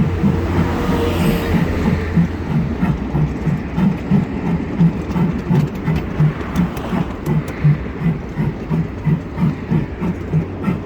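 Ride-on miniature railway train running along its track, a steady rhythmic clatter at about three beats a second over a low running hum.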